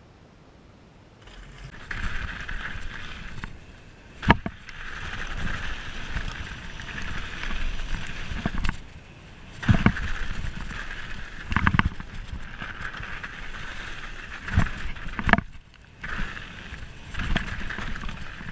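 Mountain bike riding down a rough dirt trail, starting about a second in: a steady rush of tyre and trail noise with the bike rattling, broken by several sharp knocks as it hits bumps and lands.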